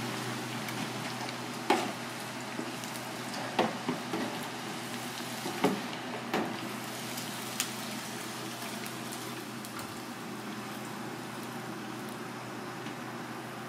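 Fish pieces deep-frying in a fryer of hot oil: a steady sizzle, with a few sharp clicks in the first eight seconds.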